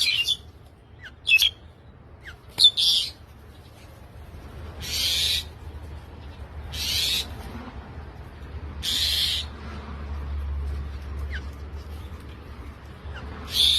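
Wild bird giving harsh, hissing calls, each about half a second long, repeated about every two seconds. A few short, sharp chirps come in the first three seconds.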